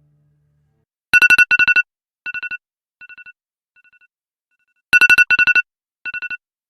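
Electronic beeping tone in rapid groups of four, each round repeating more faintly as if echoing away, then starting loud again nearer the end.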